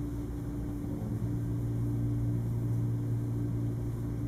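Steady low hum of room background noise, with no other events.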